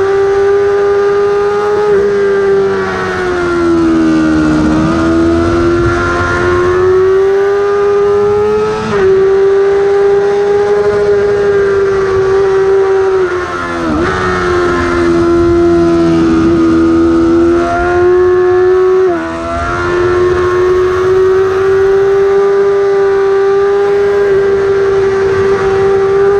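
Yamaha R6 inline-four sport bike engine screaming near the top of its rev range at racing speed. Its pitch sags and climbs through the corners, with sudden jumps about a third of the way in and again near three quarters.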